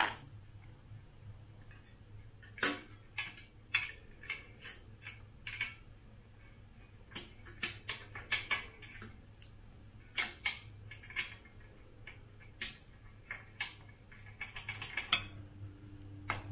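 Small metal hardware clinking and clicking as a fender stay, nut, washer and lock nut are fitted by hand at the bicycle's front fork eyelet: irregular short clicks, a cluster of them near the end.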